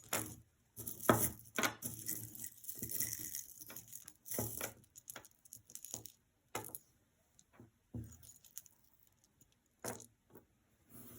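Costume jewelry being handled: bead necklaces and metal chains clicking and jangling against each other, in irregular clicks and rustles that thin out after about five seconds.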